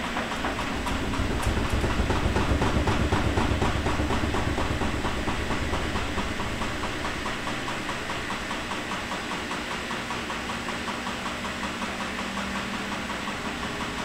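Front-loading washing machine running a wash, its drum turning with water and laundry inside. The motor and drum give a fast, even rhythmic rumble that grows louder a second or two in, then slowly eases.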